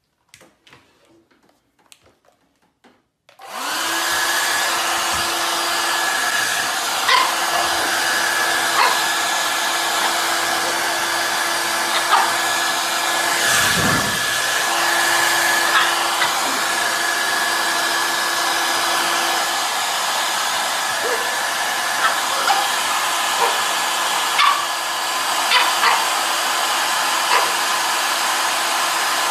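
Handheld hair dryer switched on about three and a half seconds in and running steadily, a loud rushing blow with a steady motor whine. A few short dog barks sound over it.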